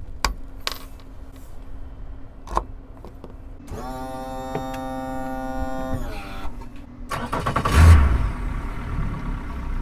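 Yamaha 115 hp outboard motor being started: a few clicks, then the electric starter whines for about two seconds, and the engine catches loudly about seven seconds in and keeps running.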